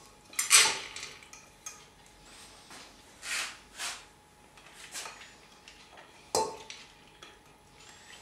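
Chana dal poured from a bowl into an aluminium pressure cooker, a rattling rush about half a second in, then several shorter scrapes as the bowl is emptied with a spoon, and a sharp knock against the cooker about six seconds in.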